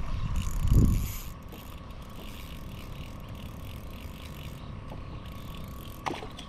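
Small ultralight spinning reel being cranked to bring in a hooked fish, its gears giving a faint, fast, even ticking. A dull low bump about a second in.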